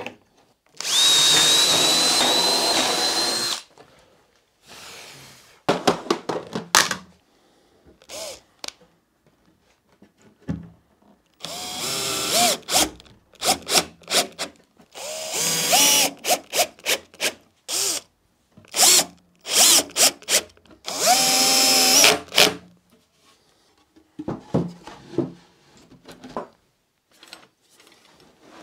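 Cordless drill-driver running in about five short bursts, each spinning up with a brief rising whine, as holes are countersunk and screws driven into OSB panels. Short knocks and clicks of handling fall between the runs.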